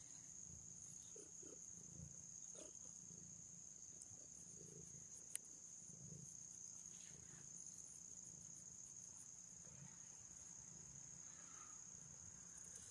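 Near silence, with a faint steady high-pitched tone throughout and a single faint click about five seconds in.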